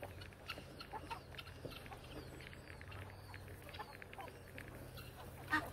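Farmyard poultry, chickens and turkeys among them, peeping and clucking with many short calls, and one louder short call near the end.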